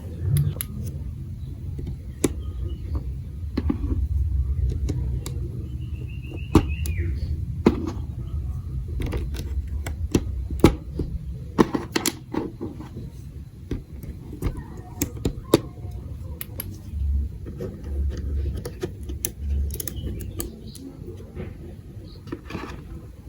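Irregular light clicks and knocks of marbles and plastic marble-run building-block pieces, over a steady low rumble.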